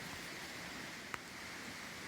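Creek water running steadily, with one sharp click a little over a second in.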